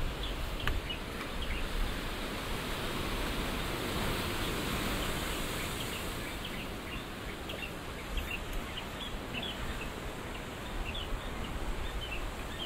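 Outdoor ambience: a steady rushing noise that swells a few seconds in and then eases off, with many short high chirps scattered through it.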